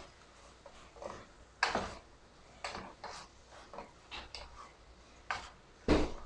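Wooden spatula scraping and tapping against an aluminium pot while stirring chunky tuna, mushroom and corn: irregular short scrapes and knocks, the loudest about two seconds in and again near the end.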